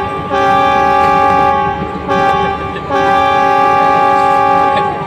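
Train horn sounding in three blasts, long, short, then long, a steady chord of several pitches at full strength.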